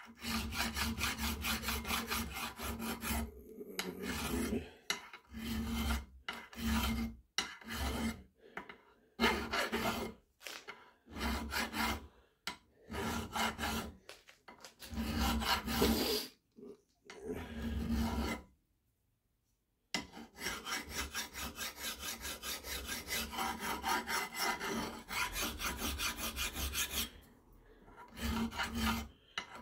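Hand filing: rapid, repeated file strokes in runs that stop and start, with one brief silence a little past halfway.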